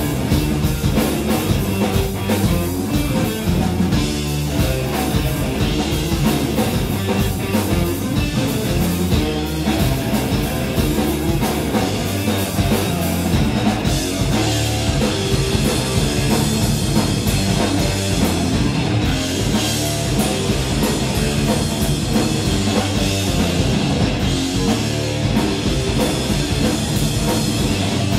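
Live rock band playing loud electric guitar, electric bass and drum kit.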